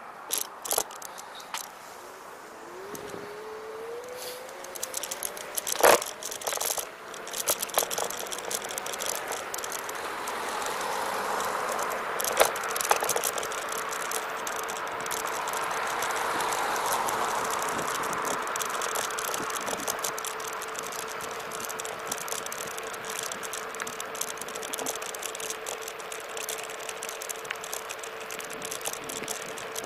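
Xplorer Ambassador electric scooter riding on pavement: its electric motor whine rises in pitch as it pulls away and then holds one steady tone, over tyre and road noise, with the deck and handlebar rattling and a few sharp knocks over bumps, the loudest about six seconds in.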